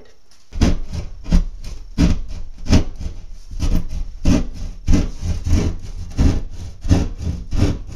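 Hand drywall saw cutting through gypsum drywall, rasping in quick, even back-and-forth strokes, about two or three a second, starting about half a second in.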